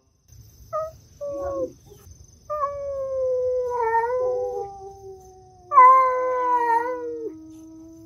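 Two cats yowling at each other in a standoff at the food: a few short calls, then long drawn-out wails that slide slowly down in pitch and overlap. The loudest wail comes just before six seconds in, over a lower held growl-like note that runs on almost to the end.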